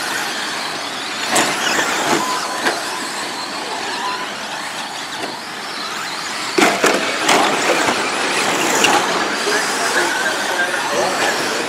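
Several electric RC race trucks running on a dirt track: motors and drivetrains whining as they accelerate, tyres churning on dirt, with a few sharp knocks. The loudest knocks come about six and a half to seven seconds in.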